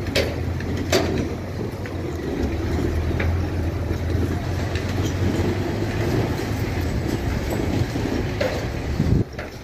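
Large truck engine running steadily at low revs, a continuous low rumble, that drops away abruptly near the end.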